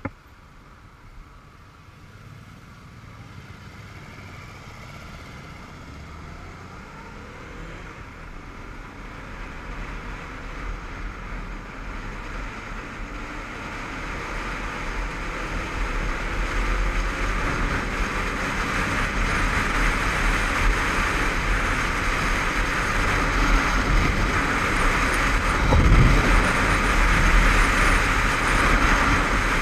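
Honda CBF500 parallel-twin motorcycle pulling away and accelerating up to dual-carriageway speed, heard from a helmet-mounted camera. Engine and wind noise grow steadily louder throughout. There is a single sharp knock at the very start.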